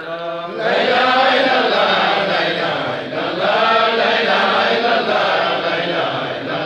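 A group of men chanting together, an Islamic devotional chant. It swells up loudly about half a second in and carries on unbroken.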